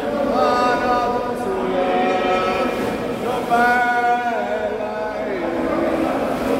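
Singing voice, most likely a Blue Grotto boatman's, in slow, long held notes that change pitch every second or so, inside the sea cave.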